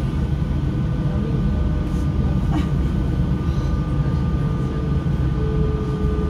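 SNCF Z 20900 double-deck electric suburban train under way, heard from on board: a steady low rumble of the running gear on the track with a faint steady whine above it.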